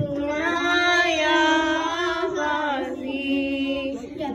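A young girl's voice chanting a noha, a Shia mourning lament, drawing out long held notes with slow bends in pitch.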